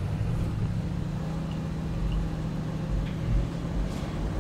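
Range Rover Sport's engine running steadily under load as it climbs a sandy hill.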